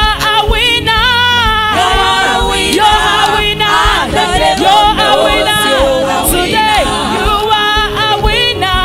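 Women's worship group singing a gospel praise song together into microphones, with instrumental backing and a steady beat.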